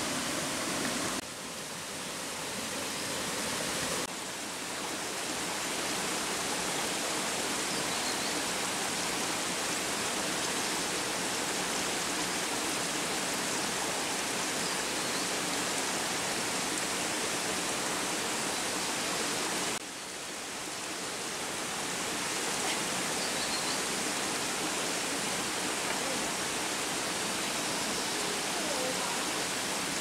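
Steady rushing of a waterfall, a dense even hiss of falling water. The level drops suddenly and builds back up about a second in and again about twenty seconds in.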